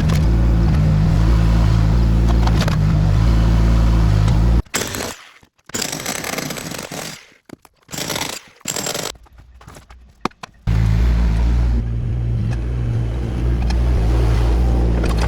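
Construction machinery running loudly and steadily with a low hum, broken in the middle by several short, choppy bits and gaps before the steady machine sound returns.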